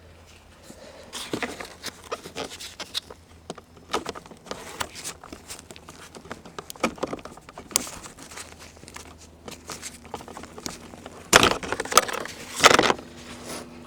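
Hands handling car centre-console plastic trim and wiring: irregular clicks, small knocks and scraping. Near the end come two louder clunks about a second apart.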